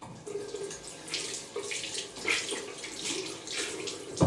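Water running from a tap into a sink, starting suddenly, with a louder knock near the end.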